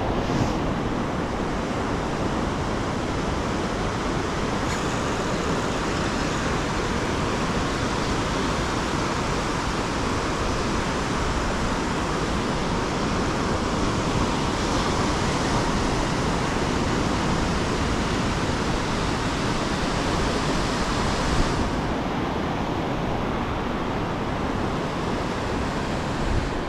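Ocean surf breaking and washing up a sandy beach: a steady, unbroken rush.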